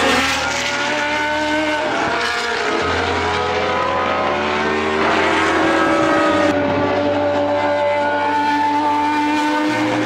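Classic 1980s Formula 1 cars' Ford Cosworth V8 engines running at racing speed. The engine note rises and falls several times through gear changes as the cars pass on track.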